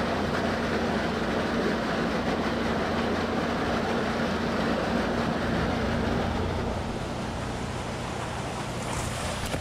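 Rushing, churning water pouring through a concrete holding channel packed with Chinook salmon, with a steady low hum underneath. The rush of water grows fainter after about six seconds.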